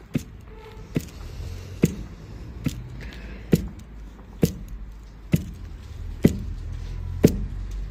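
A long pestle pounding pearl millet (bajra) in a metal bowl, one sharp thud about every second: the grain being crushed and hulled for millet khichdi.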